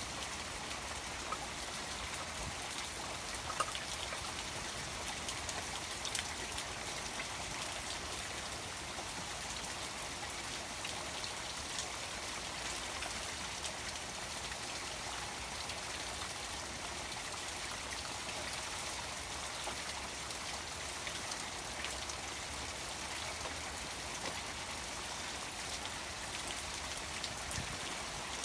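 Steady rain falling on a koi pond water garden: an even hiss with a scattered patter of drop ticks, a few louder drops in the first few seconds, and running water from the pond's waterfall mixed in.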